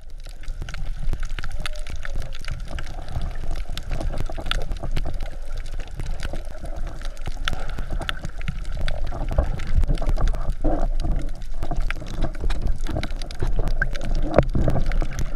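Underwater sound picked up by a camera in a waterproof housing just below the surface: a muffled rush and slosh of water with many sharp crackling clicks throughout.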